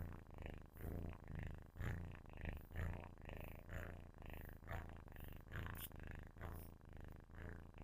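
Kitten purring loudly close to a microphone: a low, buzzing rumble that swells and fades about twice a second with each breath in and out.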